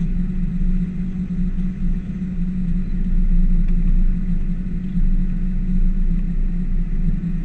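A P38 Range Rover's engine and drivetrain running as it drives along a rough track, heard from inside the cabin as a steady low drone.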